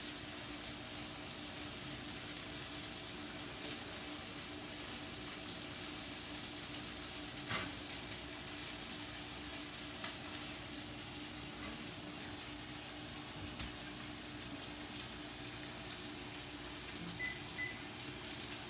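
Thick steaks searing in oil in a hot skillet: a steady sizzle, with a couple of faint knocks partway through.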